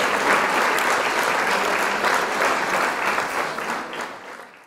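Crowd applauding, a dense steady clapping that fades out over the last second and stops.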